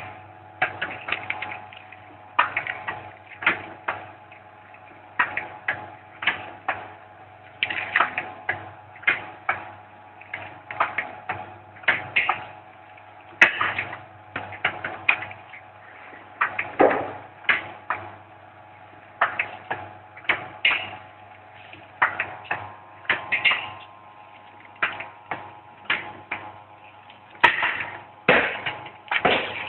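Cooking-oil packing machine running, with sharp mechanical clacks coming in a regular cycle about every two to three seconds over a steady hum.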